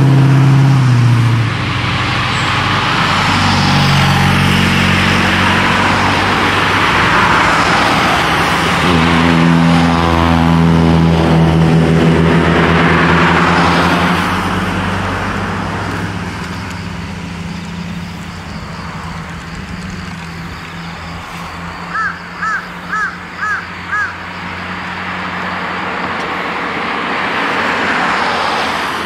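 Classic sports cars passing one after another on a climbing mountain road, their engines pulling hard out of the corner. A crow caws five times in quick succession about three-quarters of the way through.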